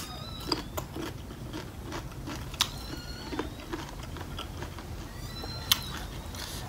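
Close-up chewing of crunchy raw cucumber and blue-crab papaya salad, with a few sharp crunches.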